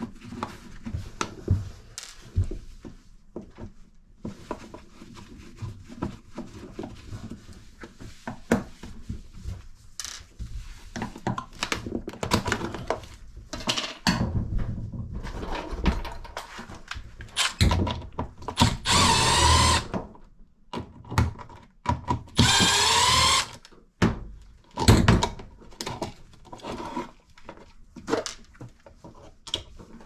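Cordless drill/driver whirring in two short runs of about a second each, a few seconds apart past the middle, backing out a wall outlet's screws, amid scattered clicks and knocks of the cover plate and outlet being handled.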